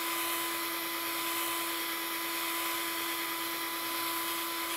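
Household power drill with a sanding pad running steadily against a plastic headlight lens: a constant whine over the hiss of the pad sanding off the yellowed haze. It cuts off suddenly at the very end.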